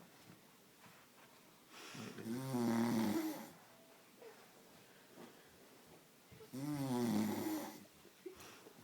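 A man snoring in his sleep: two long, pitched snores about four seconds apart, each lasting about a second and a half, with quiet between them.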